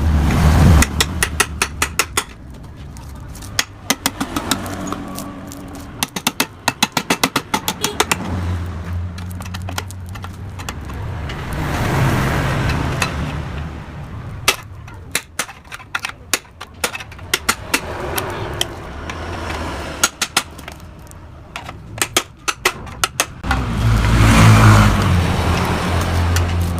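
Runs of sharp metal blows, several a second, as a Yamaha RX-King exhaust muffler is knocked open and its insides are worked out. Between the runs there are swells of rushing noise over a low hum: one at the start, one about halfway through and one near the end.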